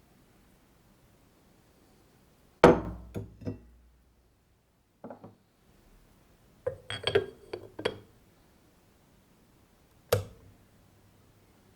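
Ceramic electric kettle being handled after filling: a loud clunk of ceramic, then lighter knocks and a quick run of clinks. A last sharp click comes near the end, and a faint low hum follows it.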